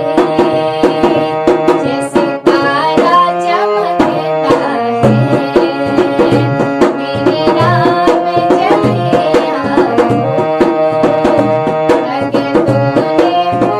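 Devotional bhajan music: tabla playing a steady rhythm under melodic instruments, with a brief dip about two seconds in.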